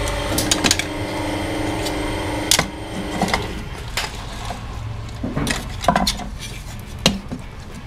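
Hard plastic action-figure pieces clattering and knocking against the steel bed of a hydraulic press as they are handled, in a dozen or so sharp, irregular knocks. The press's hydraulic pump motor hums steadily at first and fades out after a couple of seconds.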